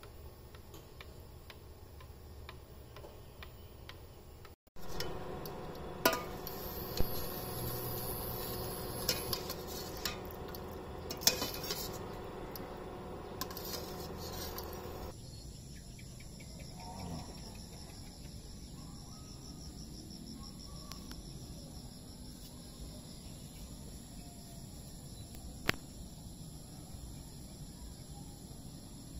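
A spoon stirring in a glass French press with faint light ticks. About five seconds in, a metal utensil starts clinking and scraping against a stainless-steel saucepan, with several sharp clinks. Around fifteen seconds in, this gives way to a steady high chirring of crickets and other insects, with a single sharp click near the end.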